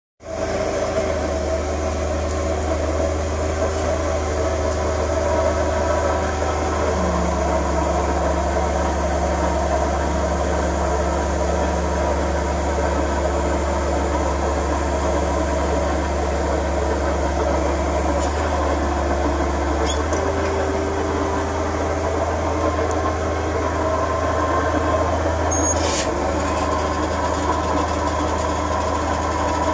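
Forklift running with a steady low mechanical hum, its tones stepping up and down in pitch a few times, and a sharp click about 26 seconds in.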